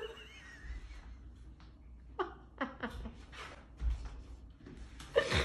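A person eating: faint clicks and chewing noises, broken by a few short hums that fall in pitch, about two seconds in and again near the end.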